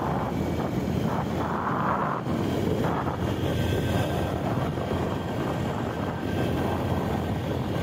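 Motorcycle riding along at road speed: the engine running steadily under wind rushing over the microphone.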